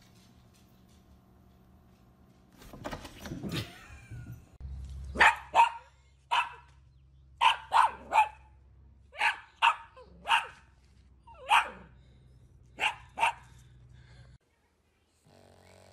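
Cavalier King Charles spaniel barking: about a dozen sharp, loud barks, mostly in quick pairs.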